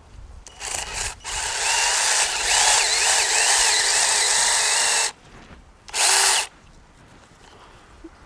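Compact cordless electric mini chainsaw cutting eucalyptus branches. It gives a couple of short bursts, then runs for about four seconds, its whine wavering as the chain bites the wood, stops, and gives one more short burst about six seconds in.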